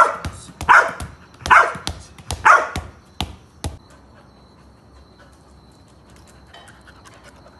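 A dog barking in a run of loud single barks, about one a second, which stops about three and a half seconds in.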